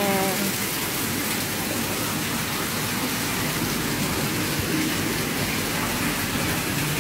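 Steady rushing hiss of falling water.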